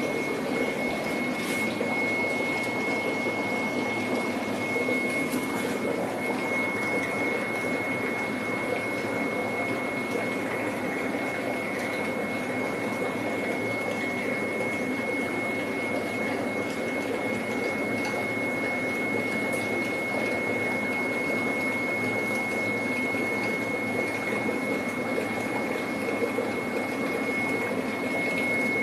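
Fish-tank water circulation: a steady rush of pumped water running into the tanks, with a constant thin high whine over it.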